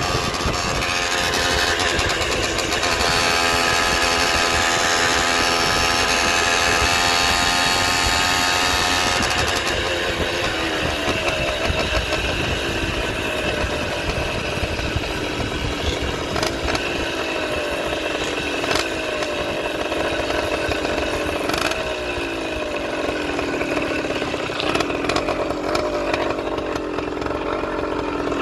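Motorized bicycle's small engine running at speed, its pitch holding steady for the first several seconds, then dropping about ten seconds in and rising and falling as the throttle is eased off and on.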